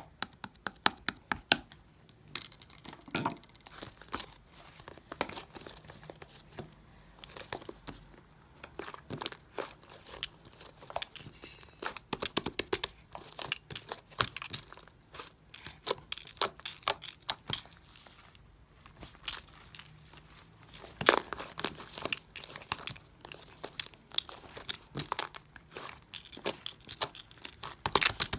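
Hands squishing and poking slime: an irregular stream of sharp clicks, pops and crackles.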